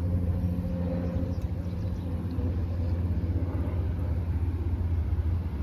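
Steady low rumble of a diesel locomotive engine, with a faint low hum that fades out about three seconds in.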